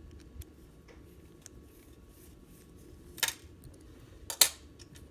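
Small screwdriver and screws being worked out of an N-scale model locomotive's metal frame: faint ticks and scrapes, then two brief, louder clatters of small metal parts about three and four and a half seconds in.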